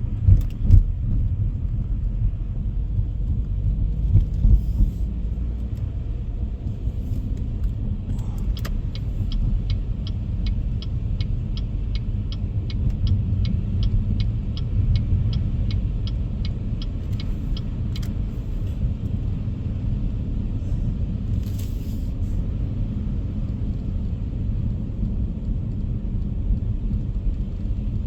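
Car cabin rumble of tyres and engine while driving at freeway speed. From about nine seconds in, a run of even clicks, about two or three a second, lasting about ten seconds, typical of a turn-signal indicator.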